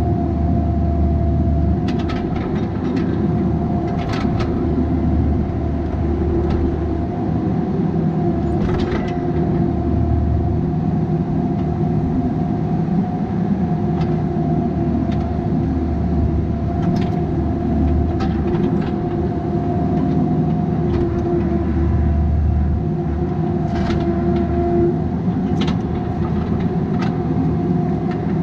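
Bobcat 337G mini excavator's diesel engine running steadily with a constant whine over it, and scattered sharp clanks and knocks as the machine works.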